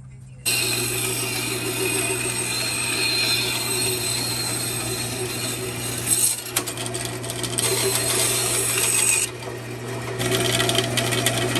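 A 1950s power saw running steadily while it cuts wood, switching on suddenly about half a second in. Its level jumps briefly around six seconds and the high whine drops out for about a second near nine seconds, as the cut changes.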